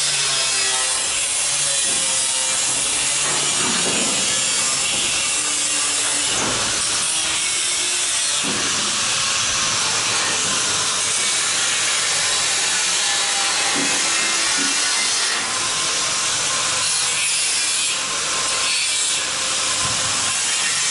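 Angle grinder grinding the steel frame of a stripped bus body: a loud, steady, harsh grinding noise of the disc on metal.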